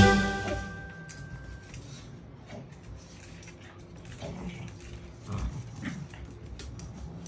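A musical jingle fades out in the first second or two. Then two small dogs, a Maltese/terrier mix and a Lhasa Apso, play-fight on a tile floor, making short scattered dog sounds and scuffles.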